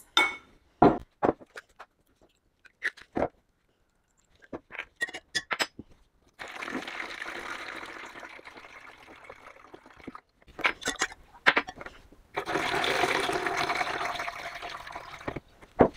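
Water being poured from a container in two spells, the second louder, with scattered clicks and knocks of plastic containers being handled before and between the pours.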